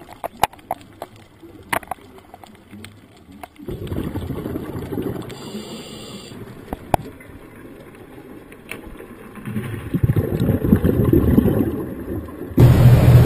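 Underwater sound picked up through a camera's waterproof housing: scattered sharp clicks at first, then a low rushing of water and bubbles that sets in a few seconds in and grows louder near the end.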